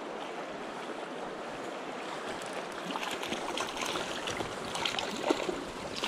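River current rushing steadily over rocks; from about halfway in, irregular splashing as a hooked rainbow trout thrashes at the surface and is scooped into a landing net.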